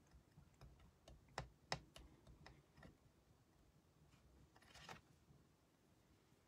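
Faint, irregular light clicks and taps, two sharper ones about a second and a half in, followed by a brief rustle near five seconds.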